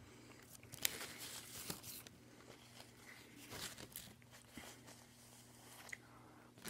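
Faint crinkling and rustling of the paper wrapper around a deli sandwich as it is handled, with scattered small ticks and quiet chewing.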